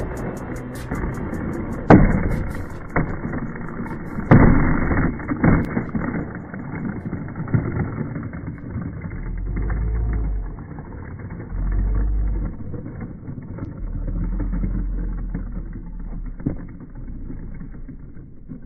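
Skateboard clacking on asphalt: two sharp board impacts about two and four seconds in, over steady outdoor noise. In the second half, a low rumble comes and goes several times.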